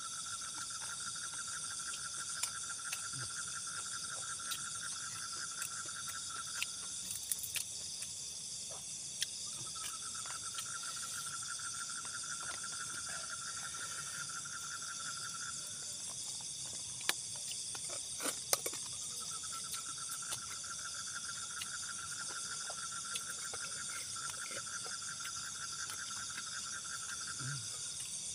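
Night insect chorus, a dense steady high-pitched buzzing of crickets, with a lower trilling call that runs in three long bouts of about six to eight seconds each. A few faint clicks come through.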